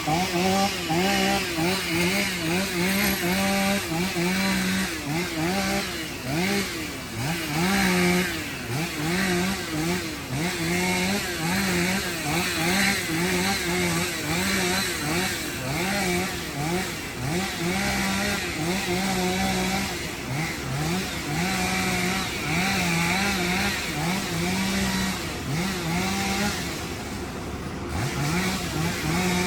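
Volvo EC140 excavator's diesel engine running hard, its pitch dipping and recovering again and again as the hydraulics take load during digging.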